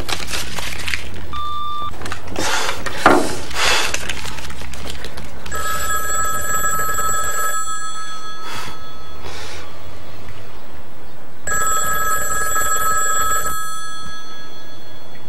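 A short electronic beep about a second and a half in, typical of an answering machine starting to record, then a thump. After that a desk telephone rings twice, each ring about two seconds long and about four seconds apart.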